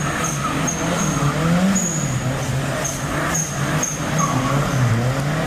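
Datsun Sunny pickup's engine revving up and down, its pitch rising and falling several times, as the truck slides with its rear wheels spinning on wet pavement, with short high tyre squeals repeating throughout.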